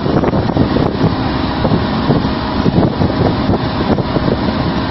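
Steady running noise of a fishing boat's engine and deck machinery, with wind on the microphone.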